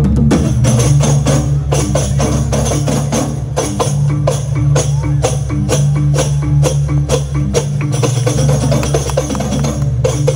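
Balinese gong kebyar gamelan playing: a dense run of fast metallic strikes over steady, sustained low ringing tones.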